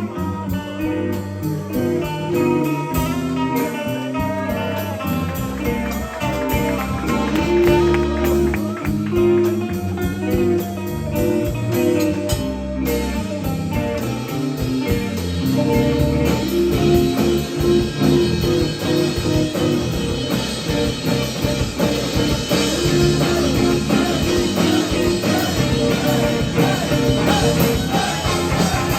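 A rock band playing: guitar over sustained bass notes and drums with a steady beat.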